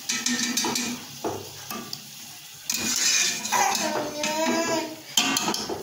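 A steel slotted spoon scraping and clinking against an aluminium pot while mutton is stirred and fried in masala. It comes as a series of irregular clicks and scrapes.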